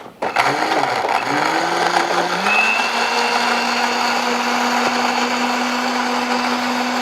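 Electric kitchen blender running, pureeing grapes, carrot, ginger and orange with water. After a brief dip right at the start, the motor's pitch rises and then holds steady.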